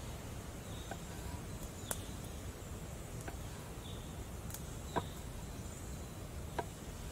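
Knife slicing garlic cloves on a wooden cutting board: about five sharp taps of the blade against the board, spaced a second or more apart, the loudest about five seconds in, over a steady outdoor background hiss.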